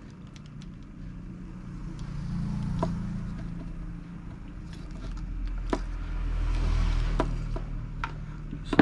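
Low engine rumble that swells and fades twice, with a few light clicks and scrapes from wires and a soldering iron being handled on the bench.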